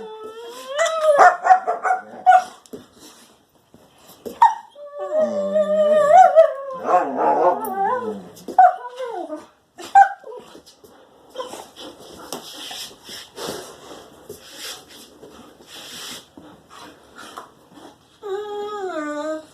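A dog vocalizing in drawn-out, wavering whines and yips that slide up and down in pitch, with a few short barks in between. The longest call runs for about three seconds, starting about five seconds in.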